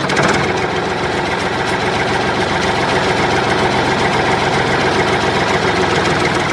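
Steady engine running sound with a fast, even pulse as the DIY toy tractor drives off.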